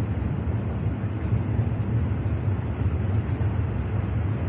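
Steady low rumble of a thunderstorm: wind and rain noise with no single thunderclap standing out.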